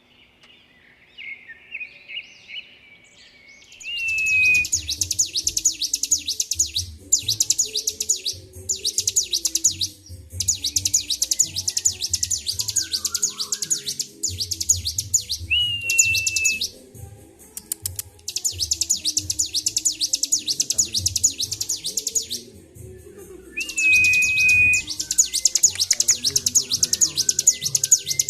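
Bar-winged prinia (ciblek) singing in full, nonstop song: long runs of very fast, high rattling trills a few seconds each, separated by short breaks, some opened by a short clear whistled note. It starts with a few soft chirps and breaks into full song about four seconds in.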